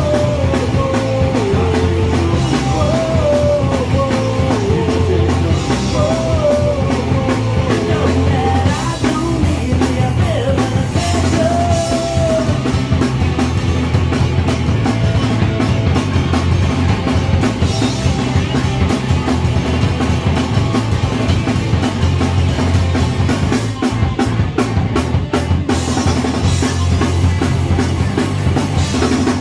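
Punk rock band playing live: distorted electric guitars, bass and drum kit, with a sung vocal line over roughly the first twelve seconds, then the band alone.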